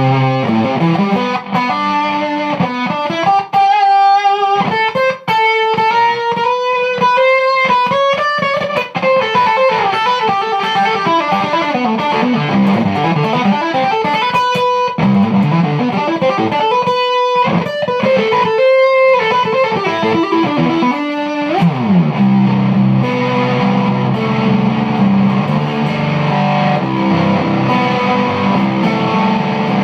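Electric guitar played through a Mark 1 Tone Bender-style germanium fuzz pedal, with the fuzz knob turned up to about half past four. It plays lead phrases of sustained, bent single notes, slides down about 21 seconds in, and then goes into a low, thick fuzzed riff.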